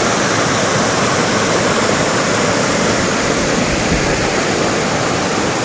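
Waterfall pouring steadily, a loud, even rush of falling water.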